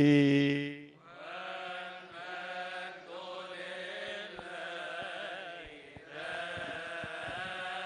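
A man's amplified voice holds the drawn-out last note of a Coptic-tone chanted Gospel reading, with a wide slow vibrato, and stops about a second in. After it, a quieter choir of deacons chants a liturgical response in a few phrases with short breaks.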